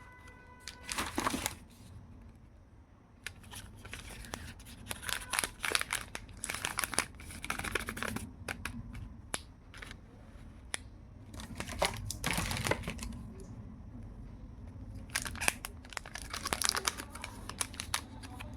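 Candy and chocolate wrappers being crinkled and torn open by hand, in several bursts of crackling with short pauses between them.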